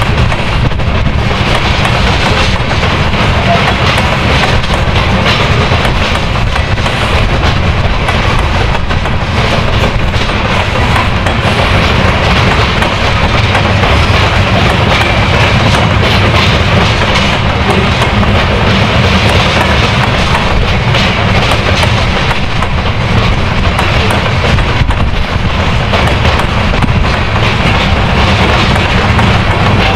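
Loaded covered hopper cars of a heavy freight train rolling slowly past, their steel wheels clicking on the rails. Under them runs a steady low drone from the EMD SD70ACE locomotives' two-stroke 710 diesels, working hard to haul the train up the grade.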